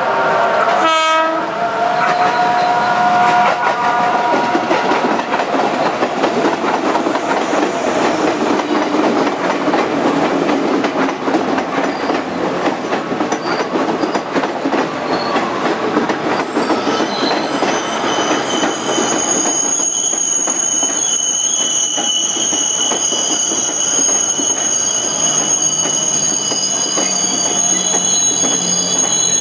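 KRL Commuterline electric train (ex-JR East 205 series) passing close by: a steady horn-like stack of tones sounds for the first three to four seconds, then the train goes by with a continuous rumble and wheel clatter. From about 17 seconds in, its wheels squeal on the curve with steady high-pitched tones until the end.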